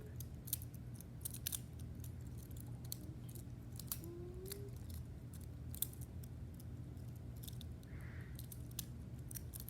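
Plastic infinity cube fidget toy being folded over and over, its small cubes clicking against each other in an irregular run of light clicks.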